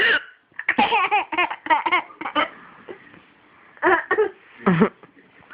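A baby laughing in a quick run of giggles about a second in, set off by a woman's hiccups: short, sharp gulps at the start and twice about four seconds in.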